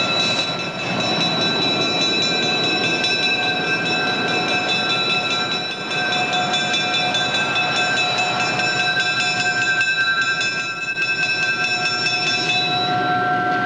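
A train rolling past on the tracks: a steady rumble of wheels on rail, with several high steady tones ringing over it.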